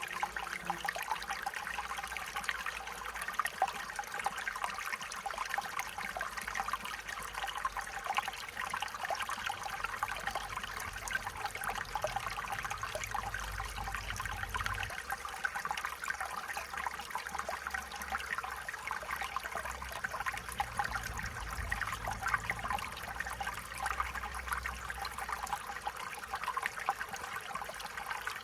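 Stream water running over stones: a steady, continuous babble and trickle.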